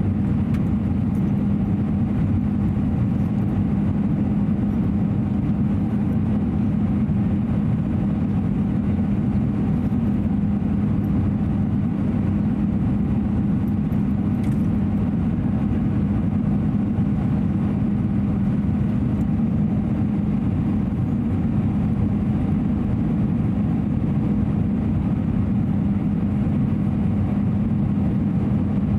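Steady cabin noise inside an Airbus A320-214 with its CFM56 engines running: an even drone of engines and rushing air with a steady low hum under it.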